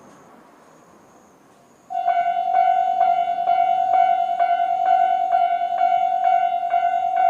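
Japanese railway level-crossing alarm starts about two seconds in. Its electronic bell rings a loud ding-ding at about two strokes a second, giving the crossing's normal warning sound before a train.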